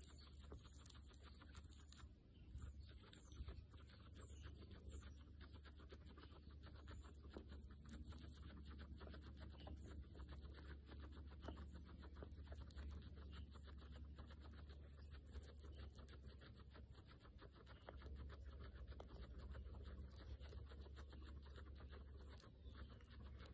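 Guinea pigs chewing fresh grass close to the microphone: a fast, continuous run of faint crunching clicks over a low steady hum.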